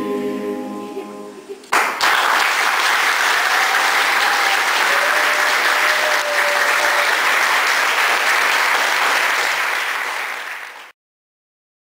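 A choir's held final chord fades out, then, after an abrupt edit about two seconds in, an audience applauds steadily. The applause cuts off suddenly about a second before the end.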